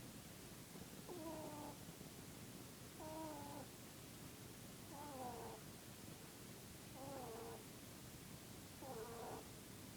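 Dutch/Polish mix rabbit snoring in its sleep: a faint, squeaky, wavering note about half a second long on each breath, coming evenly about every two seconds, five times.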